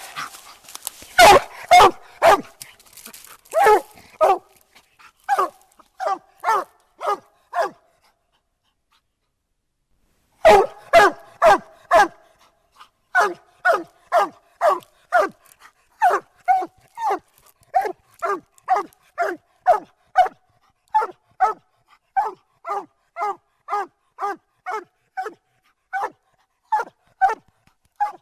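Dog barking treed, standing up against the trunk of a tree: repeated single barks, a loud flurry at first, a pause of a couple of seconds near the middle, then a steady chop of about two barks a second.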